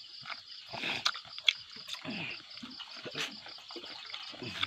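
Insects calling in a steady, fast, even pulse at a high pitch, with scattered sharp clicks and knocks over it.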